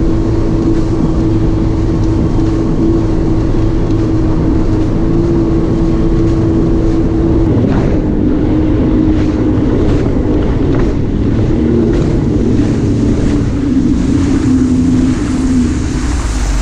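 Sea-Doo Fish Pro 170 personal watercraft running at speed across the water, its three-cylinder Rotax engine giving a steady drone that wavers and dips in pitch through the second half, over a constant rush of wind and spray.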